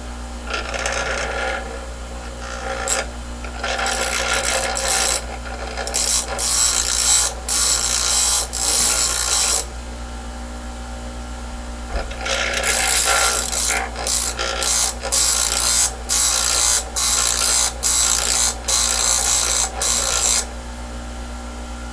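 Hart 6-inch bench grinder running with a steady low hum while steel is held against the wheel, a hissing grind in long stretches broken by many brief lifts, grinding a hollow-ground bevel.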